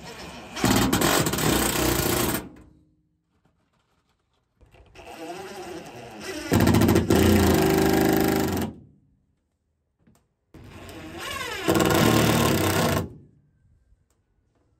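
Cordless DeWalt impact driver driving screws in three separate runs. The second and third rise in pitch and get louder partway through, as the screw bites and seats.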